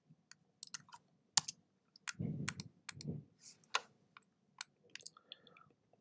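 Faint computer mouse clicks and keyboard key presses, a dozen or so sharp, irregular clicks, with a couple of soft low sounds a little past the middle.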